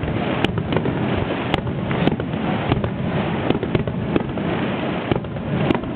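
Aerial fireworks display bursting: a continuous low rumble of shell bursts with many sharp cracks and pops scattered through it, several a second.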